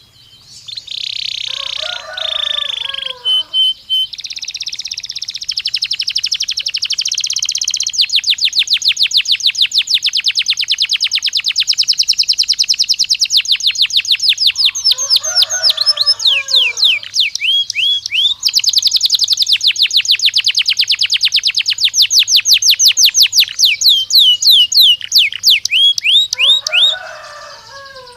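Domestic canary singing a long, continuous song of rapid trills. Each stretch of repeated notes runs at its own speed, and some later notes sweep down in pitch. A lower chirping call joins it three times.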